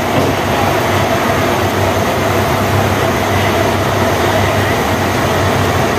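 Steady low mechanical drone of a machine running at an unchanging pace, with a constant hiss over it.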